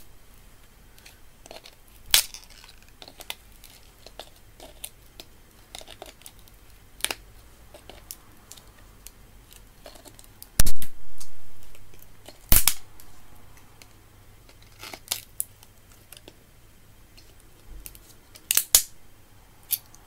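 Glued plastic housing of a photocell light sensor cracking and snapping as it is pried apart with pliers: scattered sharp clicks and cracks, with two loud snaps a little past halfway and a few more near the end.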